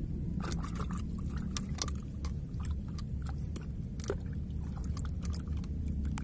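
Irregular small clicks and scrapes of hands handling things close to the microphone, over a steady low rumble.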